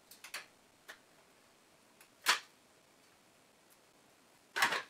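Light clicks of a screwdriver working at the fastenings of a Demag ZBV lifting motor's fan cover, with a sharp click about two seconds in and a louder knock near the end as the cover is handled.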